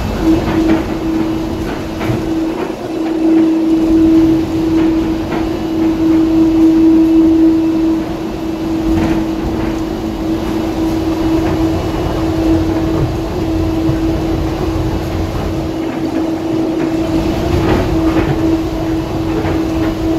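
DFW Skylink automated people mover train running along its elevated guideway, heard from inside the car: a steady hum at one pitch over the rumble of its rubber tyres, with a few light clicks.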